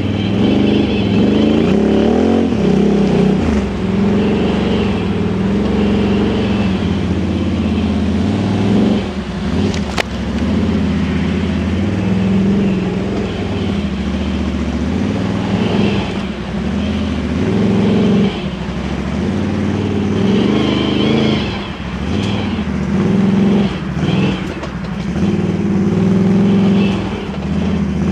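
Can-Am Outlander 1000 XMR ATV's V-twin engine running through an aftermarket dual slip-on exhaust, its revs rising and falling again and again under the throttle. A single sharp click about ten seconds in.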